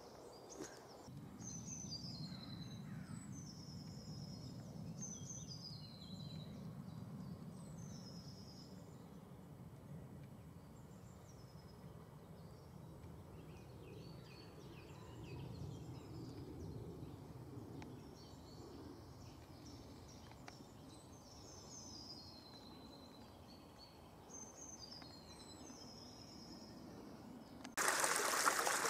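Songbirds chirping over a faint low background noise, then near the end a sudden switch to a small woodland stream trickling, which is the loudest sound.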